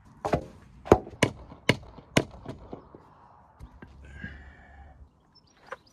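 Wooden fence rails knocking against each other or the fence: five sharp knocks about half a second apart, then a few lighter taps.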